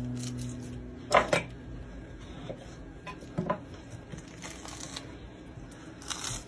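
Hands breaking and peeling mould material off a cast of a dog's paw: sharp cracks and knocks in two close pairs, about a second in and again past three seconds, with small handling and rustling noises between.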